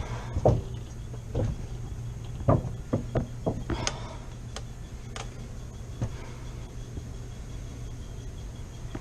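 Irregular knocks and clunks, about ten in the first six seconds, over a steady low hum.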